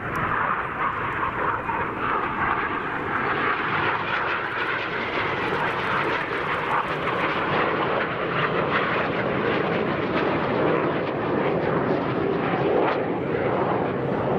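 Two BAE Hawk T1 jets flying a double roll, their Rolls-Royce Turbomeca Adour turbofans making a steady, continuous jet noise.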